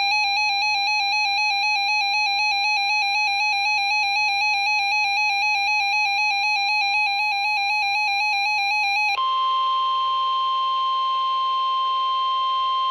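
An electronic warbling tone, trilling rapidly between two pitches for about nine seconds, switches to a single steady tone: the NOAA Weather Radio 1050 Hz warning alarm tone, which switches on weather alert radios.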